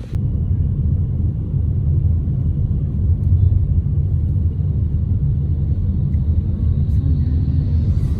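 Low, steady rumble of a moving vehicle.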